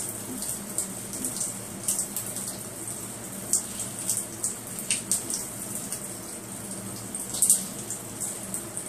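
A thin stream of running water splashing onto a turtle's shell and a tiled floor: a steady hiss broken by irregular sharp splatters, the loudest about seven and a half seconds in.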